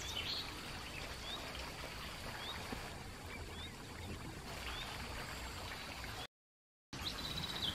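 Outdoor ambience: a low steady rumble with a few faint, short bird chirps. Near the end the sound cuts out for about half a second, then a bird's rapid high trilling song starts.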